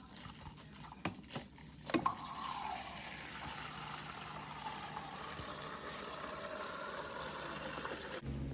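Water running into a measuring cup as a cup of water is measured out, a steady stream from about two seconds in that stops abruptly near the end. A few short knocks come before it.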